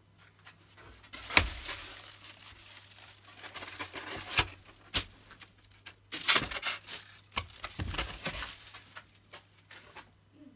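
Aluminium foil crinkling and rustling in irregular bursts, with several sharp crackles, over a faint steady low hum.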